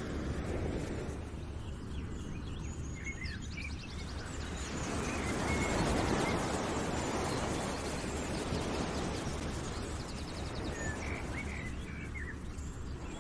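Nature-ambience background track: a broad rushing wash of noise that swells to a peak about six seconds in and eases off again, with birds chirping briefly near the start and near the end.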